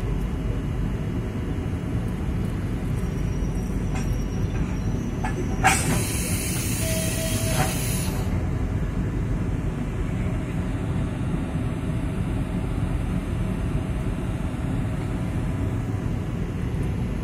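EP20 electric locomotive moving slowly up to the passenger coaches with a steady low rumble. About six seconds in, a sharp click is followed by a hiss of air lasting about two seconds.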